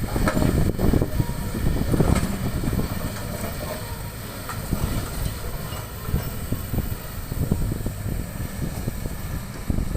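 Excavator working stone: a steady engine rumble under irregular clanking and rattling of the bucket and rocks, with a cluster of heavier knocks in the first two seconds.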